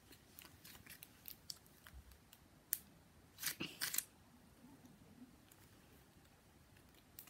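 Pink butter slime being squeezed and stretched between the fingers: faint sticky clicks and crackles, with a sharp click nearly three seconds in and a louder cluster of crackles about a second later, then quieter.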